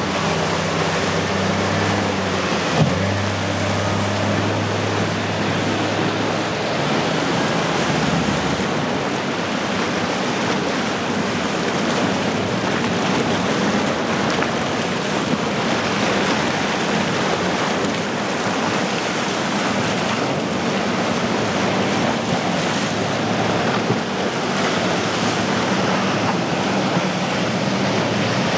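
Motorboats running through choppy inlet water: a low, steady engine drone for the first eight seconds or so, then mostly rushing water and wind.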